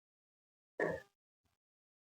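Near silence broken about a second in by one short vocal sound from a woman, a quarter-second grunt or throat noise.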